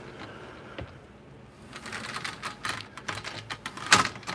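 Footsteps on a wooden dock: a run of irregular knocks and scuffs, with one louder knock near the end.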